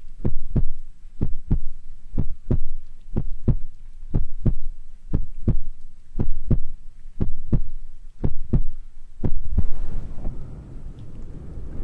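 Heartbeat sound of low paired lub-dub thumps, about one beat a second. About ten seconds in it gives way to a steady low rumble of white noise.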